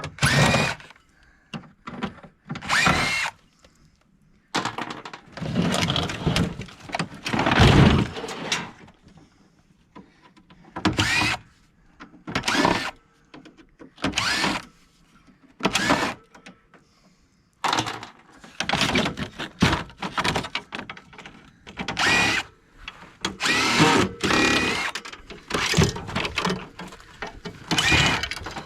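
Power drill run in short bursts, backing screws out of an air conditioner's casing: many runs of about a second each with short pauses between.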